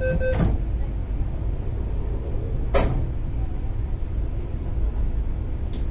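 The last of the train's door-closing warning beeps stop just after the start, followed by a sharp thump as the sliding doors shut. A steady low hum from the standing electric train follows, with a sharp click about three seconds in and another near the end.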